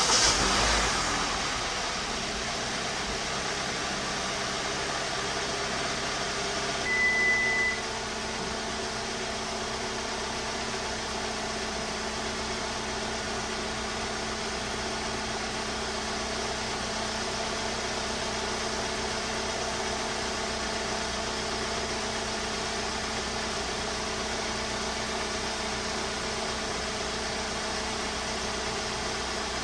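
2017 Hyundai Sonata engine idling steadily just after starting. It is a little louder for the first couple of seconds, then settles into an even idle, running smoothly now that a new ignition coil has cured its misfire. A short high beep sounds about seven seconds in.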